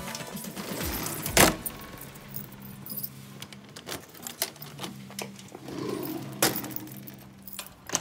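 Keys jangling and the lock and handle of a metal security screen door clicking as it is locked with a key: a series of sharp clicks, the loudest about a second and a half in.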